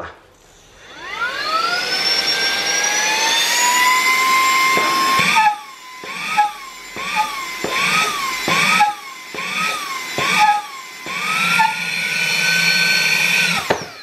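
Brushless handheld mini vacuum cleaner spinning up to a high whine, then straining hard with its nozzle held on a box weighted to 860 grams: the pitch dips and recovers about seven times, with a knock at each dip. It then rises steady again and winds down near the end.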